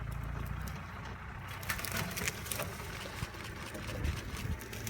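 A vehicle engine idling with a low steady hum, with scattered sharp clicks and rustles over it from about a second and a half in.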